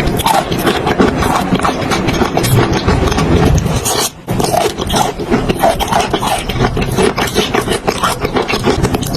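Dry chalk and clay crunching and crumbling close to the microphone: a dense, continuous run of crackling crunches, broken by a brief pause about four seconds in.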